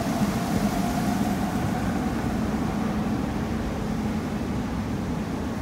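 Steady rumble of a moving vehicle, with a low hum running through it.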